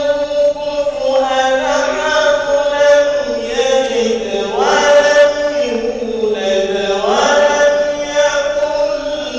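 A man's solo chanting, amplified through a handheld microphone, with long held, ornamented notes. His voice sweeps upward twice, about halfway through and near the end. A steady tone sounds underneath.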